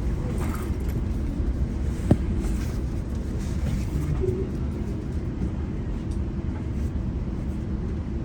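GO Transit train's diesel locomotive giving a steady low rumble as the train stands at the station, with a single sharp knock about two seconds in.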